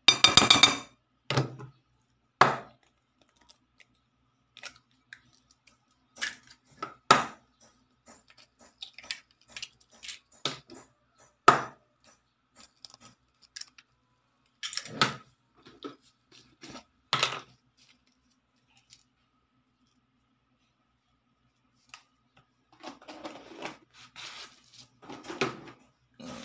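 Eggs knocked against the rim of a bowl and broken open: sharp single knocks a few seconds apart, then a busier run of small clattering knocks near the end.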